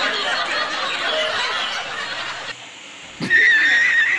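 Several men laughing and chuckling together, with a little talk mixed in. After a short lull about three seconds in, a sudden loud, steady high-pitched tone with a slight waver takes over to the end.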